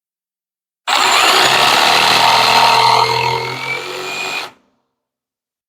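A jigsaw cutting into a wooden 1x4 board, starting abruptly about a second in. It is loud for the first two seconds, runs softer after that, and stops suddenly about three and a half seconds after starting.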